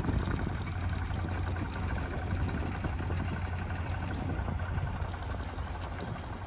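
A small boat motor running steadily with a low, even hum, over wind and water noise.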